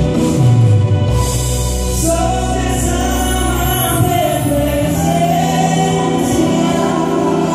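A man singing a gospel song into a handheld microphone over the church sound system, with held, sliding vocal notes over a steady instrumental accompaniment with a sustained bass.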